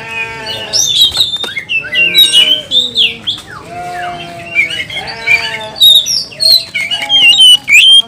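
Oriental magpie-robin singing loudly, with fast, sharply sliding whistled notes, interleaved several times with lower, longer drawn-out calls.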